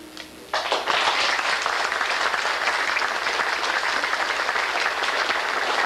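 Audience applauding, breaking out about half a second in and holding steady.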